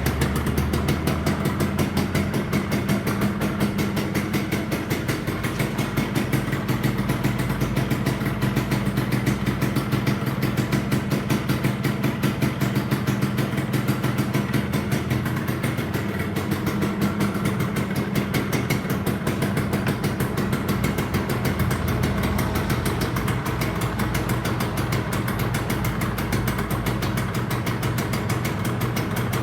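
Two-stroke motorcycle engine idling steadily, its pitch shifting slightly a few times.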